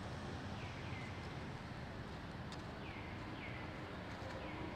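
Four short, high-pitched animal calls at irregular intervals, each sliding down in pitch, over a steady outdoor background hiss.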